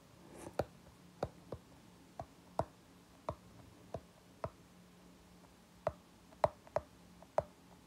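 Stylus tip tapping and clicking on a tablet's glass screen while handwriting an equation: about a dozen short, irregularly spaced clicks, over a faint low hum.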